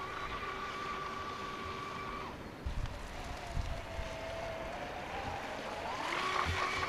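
Radio-controlled powerboat running flat out across the water, its motor a steady high whine. The pitch drops about two seconds in and rises and grows louder near the end, with a few low thumps along the way.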